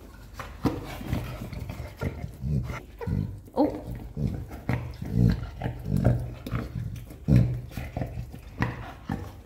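A dog chewing a squeaky toy, the squeaker going off in short squeaks over and over.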